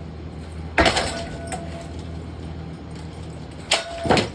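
Hard metallic clanks as the ceiling fan's metal parts are struck: one about a second in and two close together near the end, the first two leaving a brief ringing tone. A steady low hum runs underneath.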